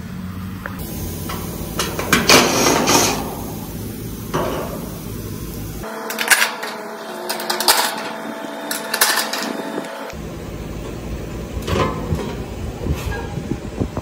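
Clunks and rattles of sheet metal as the fan-grille top of an air-conditioning condensing unit is unfastened and lifted off, with a cordless drill whirring in short runs about halfway through.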